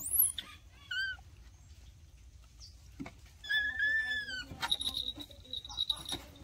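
Animal calls: a short high chirp at the start and another brief falling call about a second in, then one arched call lasting about a second a little past halfway, followed by a thin steady high tone.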